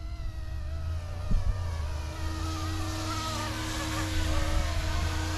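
Whine of a small RC helicopter's brushless motor and rotor in flight, its pitch wavering up and down as the throttle and head speed change, over a low wind rumble on the microphone. One short knock about a second in.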